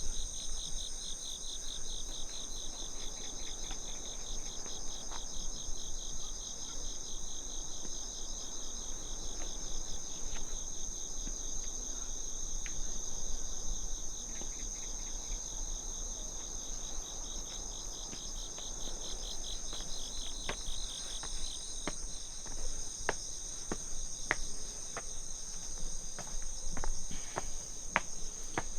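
A chorus of crickets and other insects chirping in steady high trills. One rapidly pulsing trill stops about three-quarters of the way through, and a scatter of sharp clicks follows.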